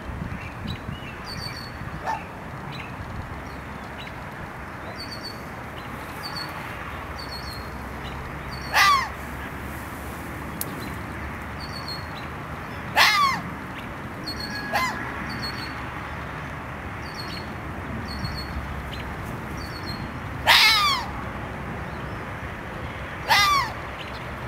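Red fox barking: four loud, short barks spaced several seconds apart, each falling in pitch, with a fainter bark between the second and third.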